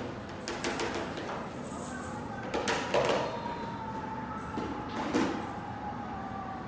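A cat in heat calling in the background: one long, drawn-out yowl that slowly falls in pitch, running through the second half. Two brief louder rustling knocks, about 3 s and 5 s in, are the loudest sounds.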